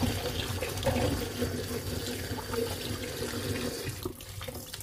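Kitchen tap running and splashing into a plastic basin of okra pods being washed; the flow turns quieter about four seconds in.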